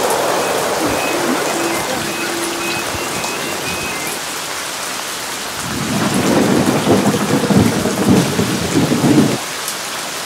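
Steady rain hiss, with a rumble of thunder about six seconds in that lasts a few seconds and cuts off abruptly.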